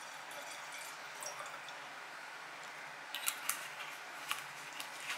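Quiet room tone with a handful of small, irregular clicks and ticks from about three seconds in.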